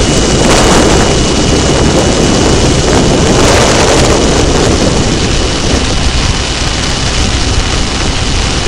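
Loud, steady wind buffeting on a motorcycle-mounted camera's microphone at cruising speed, mixed with the sport bike's engine and road rumble.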